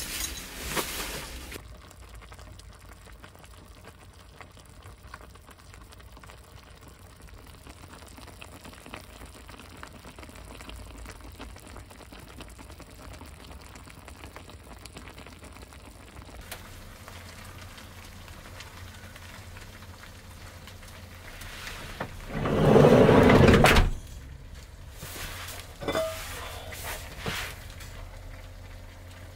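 Faint crackling from a wood-fired sauna stove over a low steady hum. About three quarters of the way through comes a loud rushing sound lasting about two seconds, then two short knocks.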